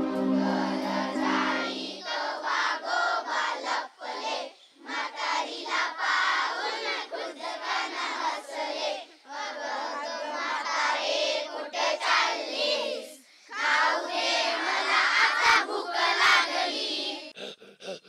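A large group of children singing and chanting together in unison, in phrases a few seconds long broken by short pauses.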